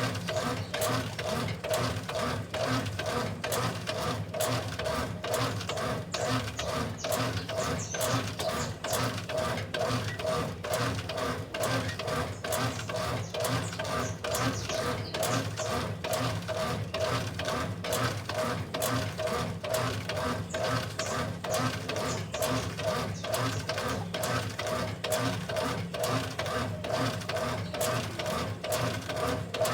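Small washing machine running in its wash cycle: a steady motor hum with many short clicks throughout.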